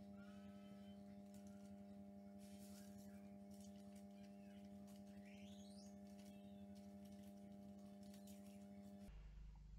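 Near silence: a faint steady low hum, with faint rustles and clicks of paper butterflies being handled.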